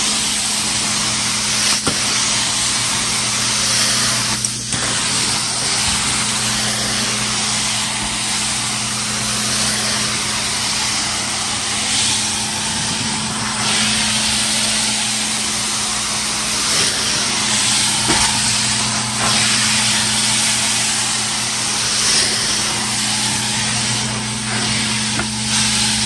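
Truckmount carpet-cleaning wand in use on carpet: a steady rushing roar of vacuum suction through the wand, with the hiss of near-boiling water spraying from its jets and a steady low hum under it.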